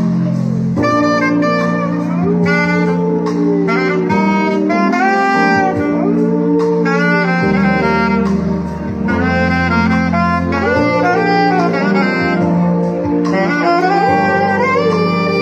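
A saxophone playing a jazzy melody over a steady low accompaniment, while a dog howls along in several long notes that rise and fall in pitch.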